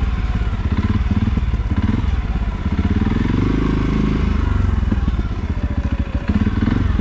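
CFMOTO CForce 450 ATV's single-cylinder four-stroke engine running at low speed while the quad rides along a rocky dirt trail. Its note rises and falls once around the middle.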